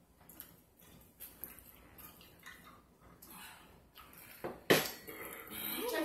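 Close-up eating sounds: many small clicks and wet smacks of chewing and drinking, then a sharp knock about four and a half seconds in as a plastic drink jar is set down on the table.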